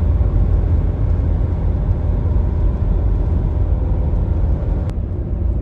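Steady low rumble of road and engine noise inside a car cruising at motorway speed, with a brief click near the end.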